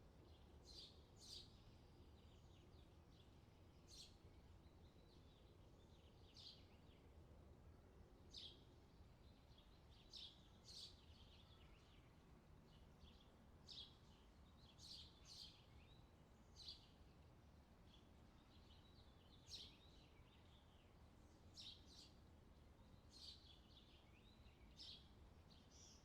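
Faint nature ambience: birds giving short, high chirps every second or two over a quiet, steady low background noise.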